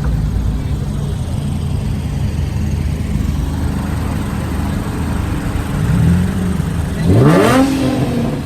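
Car engine idling with a steady low hum, then revved once near the end, its pitch rising sharply.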